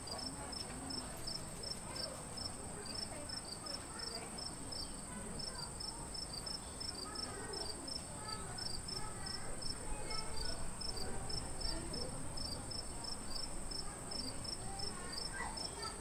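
Insects chirping in a steady, rapid rhythm, about three to four high chirps a second, over a continuous high-pitched insect whine.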